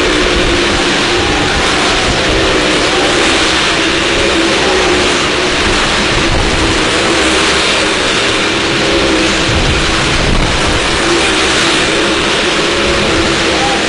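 Car and motorcycle engines running hard together as the vehicles circle the vertical wall of a wall-of-death drum: a loud, steady din whose engine pitch wavers slightly.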